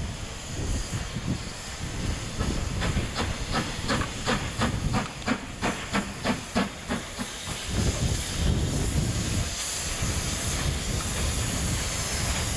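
LMS Stanier Class 5 'Black Five' steam locomotive No. 5025 moving slowly, with a steady hiss of steam over a low rumble. From about two to seven seconds in, a run of sharp puffs comes about three a second, while steam blows from around the cylinders.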